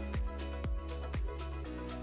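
Electronic background music with a steady kick-drum beat about twice a second; the beat drops out about one and a half seconds in, leaving sustained bass and chords.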